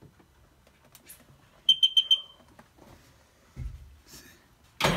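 Four quick, high-pitched electronic beeps from a beeper, about two seconds in. A dull thump follows, then a louder clatter near the end.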